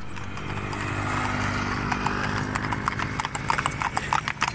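Harness horses' hooves clip-clopping rapidly, the strikes growing clearer from about two seconds in, over a steady low hum.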